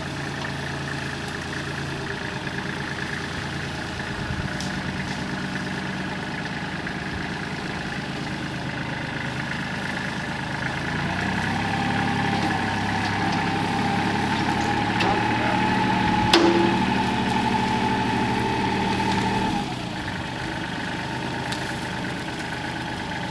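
Chainsaw engine running steadily. For about eight seconds in the middle it runs louder and busier, as if under load in the cut, and drops back abruptly. One sharp crack comes about two-thirds of the way through.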